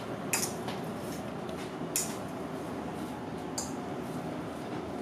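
A metal fork mashing avocado into shredded chicken in a bowl, with a few sharp clicks of the fork against the bowl.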